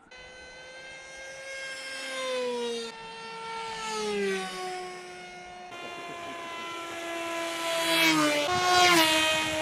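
Brushless electric motor (Brotherhobby Avenger 2808, 1500 kV) spinning an 8-inch propeller on an RC plane in flight: a buzzing whine whose pitch glides down in steps. Near the end it grows louder and its pitch swoops up and down twice as the plane passes close.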